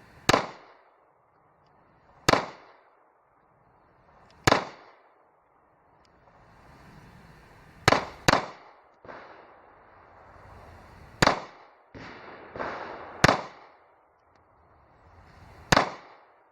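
Ruger LC9S 9mm pistol firing, about eight loud shots spaced one to three seconds apart, two of them in quick succession about eight seconds in, with a few fainter bangs between.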